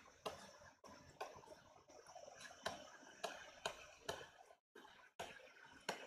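Faint, irregular taps and light scratches of a stylus writing on a digital tablet.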